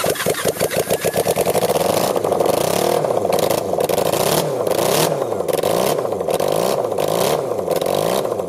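1980 Honda CB750C air-cooled inline-four engine running in a kart frame. It fires with even, close-spaced pulses for the first couple of seconds, then is revved up and down over and over. It is running well on its original carburetors.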